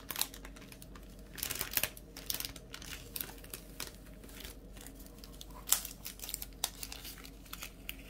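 Clear plastic protective film of a diamond painting canvas crinkling in irregular bursts as it is lifted and handled, with scattered small clicks.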